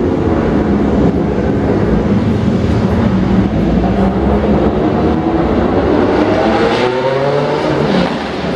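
Engines of classic racing cars running past on a slow parade lap, a steady mix of several engines. About six seconds in, one engine revs up in pitch, then drops back near the end.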